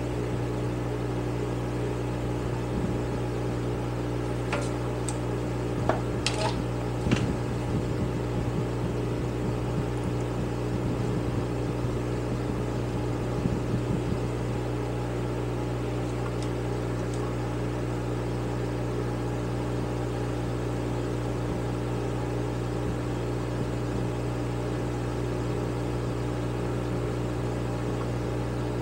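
Steady machine hum, like a shop fan running, with a few light clicks of small metal carburetor parts being handled and fitted about five to seven seconds in and again near the middle.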